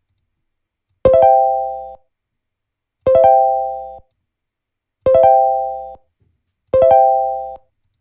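A short chime-like keyboard sound effect, a quickly rolled chord that rings and fades over about a second, played four times about two seconds apart.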